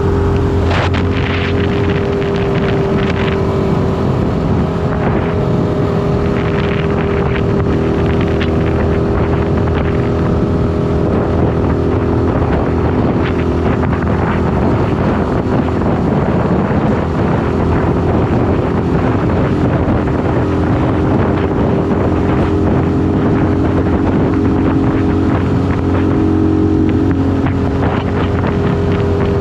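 Shineray SBM 250S motorcycle engine running at a steady cruising pace while riding, with wind rushing over the microphone.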